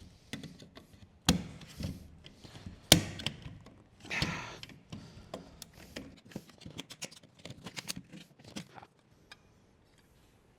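Plastic parts of a Jeep Wrangler HVAC climate control panel knocking and clicking as they are pried apart. There are two sharp knocks, then a creaking scrape about four seconds in, then a run of small quick clicks.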